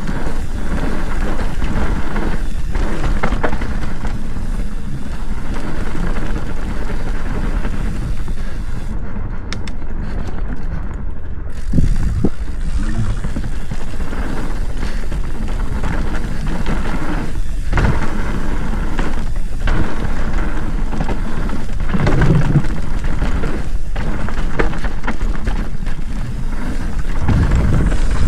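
Mountain bike rolling down a dirt singletrack: steady wind buffeting on the camera microphone and tyre rumble, with occasional knocks and rattles as the bike hits bumps.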